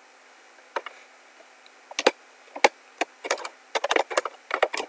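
Typing on a laptop keyboard: scattered single keystrokes at first, then quicker runs of key clicks near the end.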